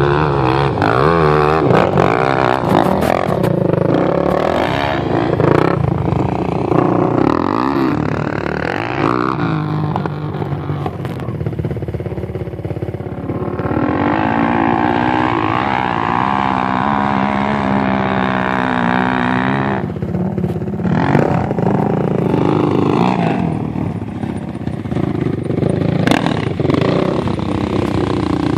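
Quad ATV engines revving, pitch rising and falling as the riders power up and across a sand hill, with steadier throttle for a few seconds around the middle.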